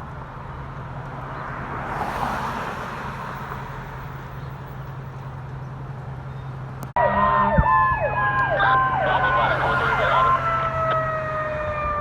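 A steady low hum with passing road noise. About seven seconds in, an abrupt cut brings a loud emergency-vehicle siren: a fast wavering wail together with several long tones that slowly fall in pitch.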